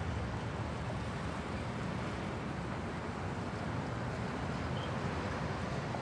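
Dense city traffic heard up close: a continuous low rumble of engines and tyres on the road, steady throughout, with no single vehicle, horn or other event standing out.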